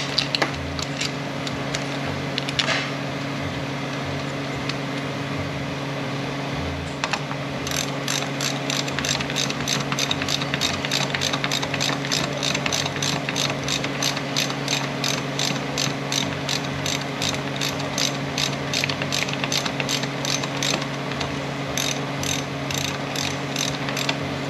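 Hand ratchet clicking as small bolts are run down. The clicks are steady, about three a second, and start about seven seconds in after a couple of knocks. A steady low hum runs underneath.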